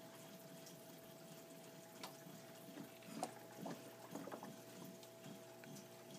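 Faint sound of water moving in a reef aquarium, with a steady pump hum and a few small ticks and splashes partway through.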